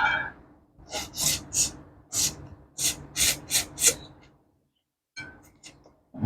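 Someone slurping and sucking soup and prawn while eating: a quick run of about eight short, airy slurps over some three seconds, then a few shorter, fainter ones near the end.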